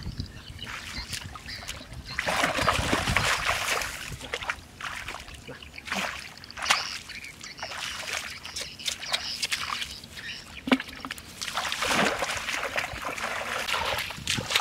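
Hands splashing and sloshing in shallow muddy paddy water, in bursts, with scattered sharp splats.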